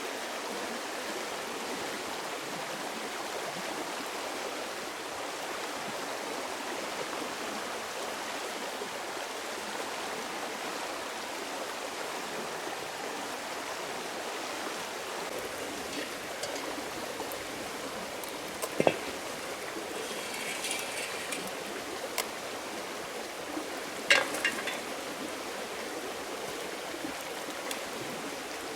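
Steady rush of running water, as from a forest stream, with two sharp knocks about two-thirds of the way in and a brief scraping rustle between them.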